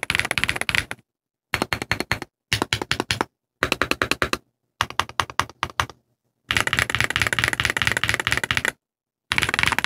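Mechanical keyboard with factory-lubed Gateron CM 3.0 linear switches and thick polycarbonate-and-PBT ASA keycaps, typed on quickly with a clacky keystroke sound. It comes as several runs of fast typing, cut apart by short silent gaps.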